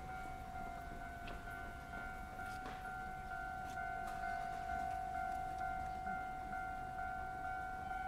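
Japanese railway level crossing's electronic warning bell ringing, a steady pitched ding repeating about twice a second, sounding while the barriers are down for an approaching train.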